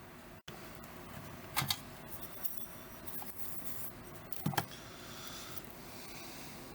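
Small parts and tools being handled on a workbench: two short clinks about three seconds apart, with light rustling between them.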